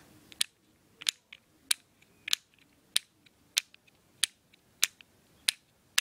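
Plastic rocker switch on a fidget cube being flicked back and forth, giving about ten sharp, evenly spaced clicks, a little under two a second.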